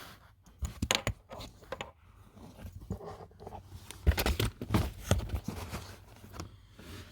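Hands handling and fitting plastic car interior trim: a scatter of clicks, rattles and rustles in two bursts, one about a second in and a louder one about four seconds in.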